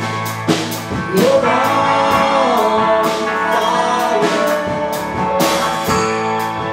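Rock band playing live: drum kit with repeated cymbal and drum hits, bass and guitar, and a voice singing a long wavering line through the middle.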